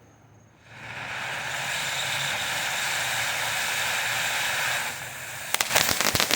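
Firework fountain spraying with a steady hiss that drops away briefly at the start and builds again about a second in. Near the end it breaks into a dense, rapid crackling from its crackle effect.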